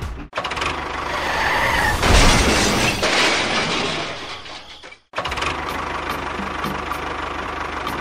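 A rushing noise that swells to a peak about two seconds in and fades away, then a dubbed engine sound effect running steadily.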